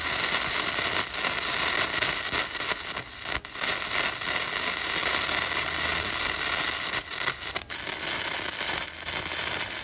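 Gasless flux-core semi-automatic (MIG) welder arc crackling steadily as a weld is run on 1.2 mm steel plate at a raised amperage setting. The arc breaks off briefly twice.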